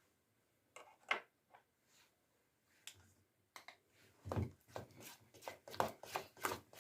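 Thick PVA white glue being stirred in a container as colouring is mixed in, giving irregular sticky clicks and smacks. They are sparse at first and come thick and fast in the second half.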